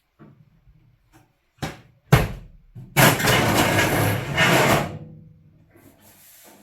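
Carpentry work on wood framing: two sharp knocks, then about two seconds of loud, rough scraping noise, followed by fainter handling sounds.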